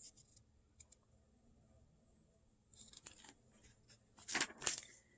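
Quiet handling noises: scattered soft clicks and rustles, with two short, louder rustling scrapes about four seconds in.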